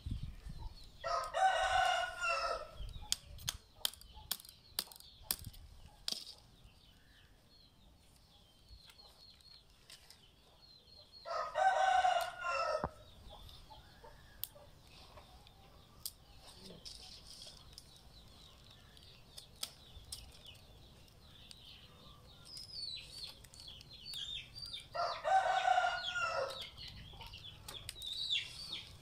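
A rooster crowing three times, each crow about a second and a half long, spaced roughly ten seconds apart. Scattered sharp clicks and faint small-bird chirping fill the gaps.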